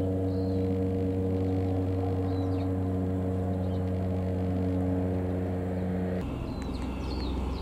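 Steady electrical mains hum, a low buzz with several even overtones, from the running 250 W sodium streetlight's ballast and the electromechanical kWh meters. About six seconds in, the higher tones drop out and a lower hum carries on.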